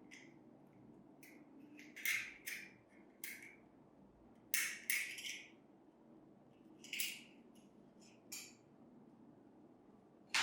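Short clinks and scrapes of small metal parts being handled on a workbench, about seven separate sounds, the loudest around two seconds and five seconds in.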